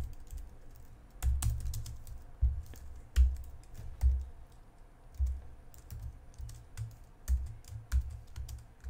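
Typing on a computer keyboard: irregular keystrokes at an uneven pace, each with a low thud.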